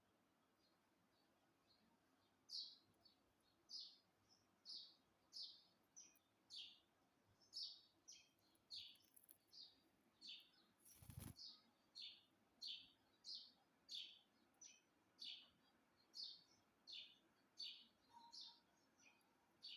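Pet parrot calling: short, high-pitched chirping calls repeated steadily, about one and a half a second, starting a couple of seconds in. A brief rustling noise comes about halfway through.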